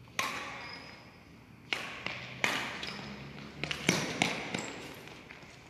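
Badminton rackets striking a shuttlecock in a rally: a string of about seven sharp smacks at uneven spacing, the first a fraction of a second in as the serve, each echoing in a large hall.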